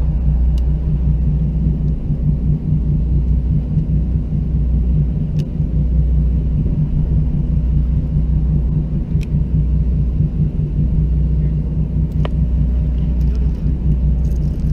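Steady low drone of the fishing boat's engine running, with a few faint ticks scattered through it.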